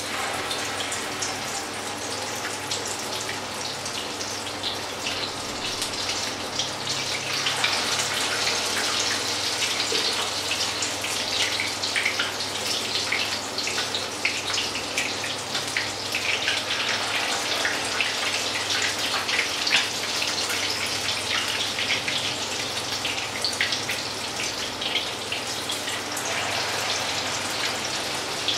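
Hot oil sizzling and spattering in a frying pan as spoonfuls of grated-potato batter fry into potato pancakes. The sizzle swells each time a fresh spoonful is dropped in.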